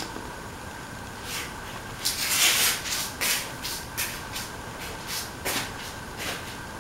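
Oil heating in a hot steel pan, giving short, irregular bursts of hissing crackle over a faint steady hum. The longest and loudest burst comes about two seconds in.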